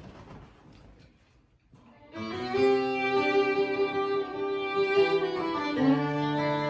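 Fiddle starting the intro of a country song about two seconds in, bowing long held notes after a brief near-silent gap. Lower accompanying notes join near the end.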